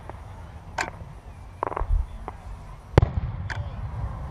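Aerial fireworks going off: several separate sharp bangs and pops, the loudest about three seconds in.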